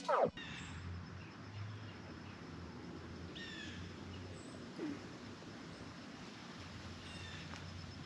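An electronic intro sting cuts off right at the start. Then a faint outdoor backdrop with a low steady hum, and a bird chirping in three short bouts a few seconds apart.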